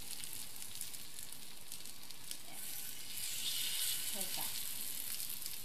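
Hot oil sizzling in a non-stick pan as paste-coated stuffed capsicum rings are laid in to shallow-fry. The sizzle is a steady hiss that swells for a moment about three seconds in.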